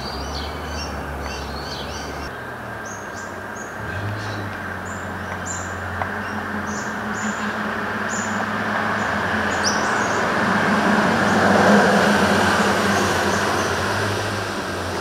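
Adelaide Metro 4000-class electric multiple unit approaching on the track: a rushing rumble that grows louder to a peak about twelve seconds in, then eases a little, over a steady low hum. Birds chirp over it during the first half.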